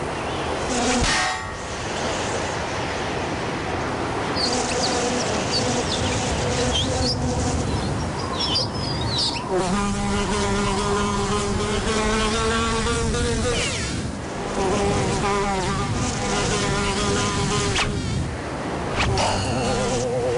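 Buzzing like a flying insect's, with several pitched tones that waver up and down, loudest in the middle stretch, and a few short high whistling glides.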